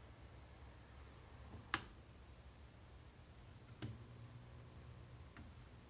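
Three sharp clicks spaced about two seconds apart, the first the loudest, over a faint steady low hum.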